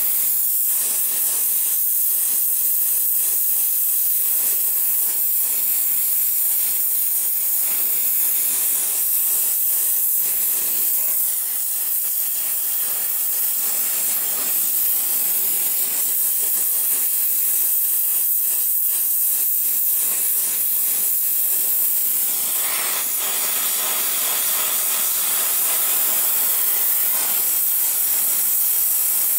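Gas torch flame hissing steadily while heating a rusted, seized exhaust manifold stud to break it loose.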